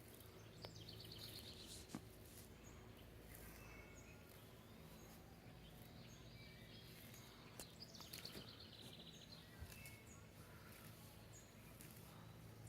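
Faint outdoor ambience with distant songbirds: a rapid trill about a second in and another near the middle, with scattered short chirps, over a faint steady low hum.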